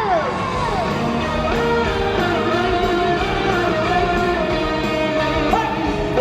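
Rock band playing live, an electric guitar carrying the melody over the band, sliding between held notes.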